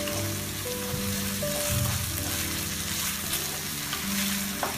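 Diced vegetables and egg sizzling in oil in a wok while being stirred into tomato ketchup with a wooden spatula, a steady frying hiss. Soft background music with held notes plays underneath.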